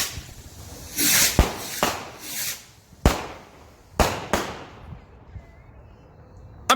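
Neon Fusion XL firework rockets launching with short rushing hisses, and four sharp cracks as they burst in the first four and a half seconds.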